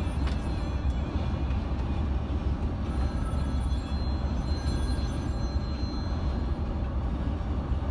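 Steady low rumble of a Mercedes-Benz Travego coach cruising at highway speed, engine and tyre noise heard from inside the cabin.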